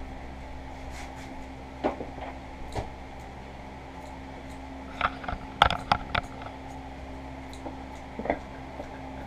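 A heavy metal knife vise being handled and unpacked: scattered clicks and knocks, clustered about five to six seconds in, over a steady low hum.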